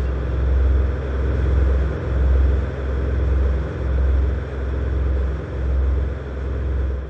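Deep rumbling drone from a creepy sound effect, with a hiss over it, swelling and fading in slow pulses about once a second.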